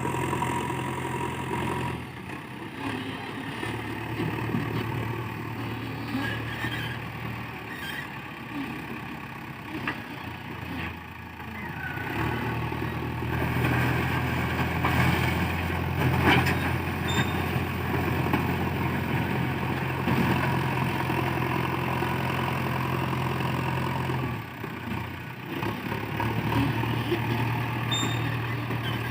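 JCB 3DX backhoe loader's diesel engine running while the machine works, its level shifting: quieter for the first ten seconds or so, then running steadier and louder from about twelve seconds in, with a short dip near the end and a single knock about halfway through.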